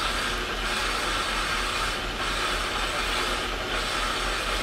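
Rock-crystal (quartz) sphere being ground by hand on a wet, spinning grinding dish: a steady gritty hiss over the hum of the machine's motor. The hiss rises and falls about every second and a half as the sphere is pressed and turned.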